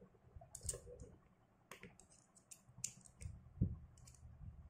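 Fanshun FK1000 spinning reel being taken apart with a small screwdriver: scattered quiet metal clicks and taps of the tool and reel parts, with a soft knock a little past halfway.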